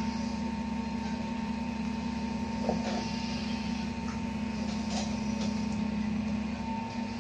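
Steady low electrical hum of a running desktop computer, with a few faint clicks as a hand presses at the front panel and optical drive.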